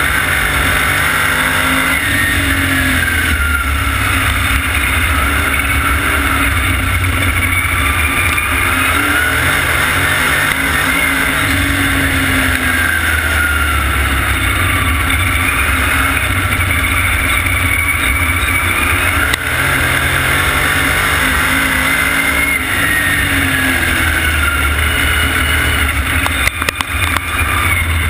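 Vintage supermodified race car's engine at full racing speed, heard loud from on board, its pitch rising on the straights and dropping back into the turns in repeating swells every several seconds.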